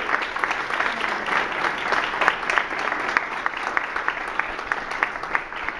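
Audience applauding: many hands clapping at once, thinning a little near the end.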